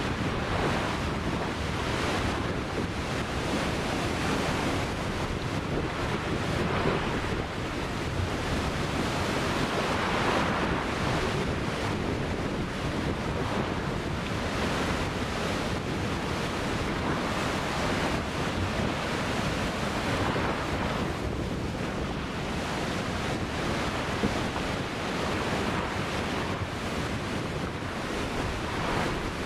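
Ocean waves breaking and washing on a beach, a continuous surf rush that swells and ebbs every few seconds, with wind on the microphone.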